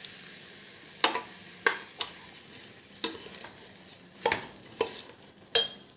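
A perforated steel ladle stirring raw rice as it fries in ghee in a stainless steel pressure cooker: about seven sharp, irregular clinks and scrapes of metal on the pot over a steady faint sizzle.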